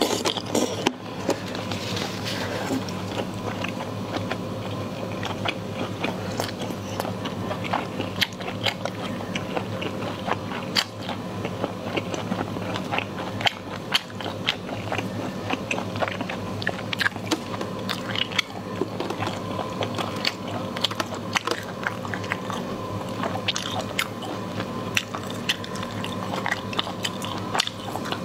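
Close-up eating sounds: biting and chewing, with many small mouth clicks throughout, over a steady low hum.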